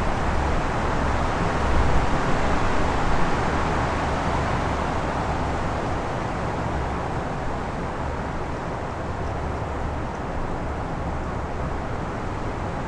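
Strong wind blowing in steady gusts, with a low rumble underneath; it swells about two to three seconds in, then eases a little.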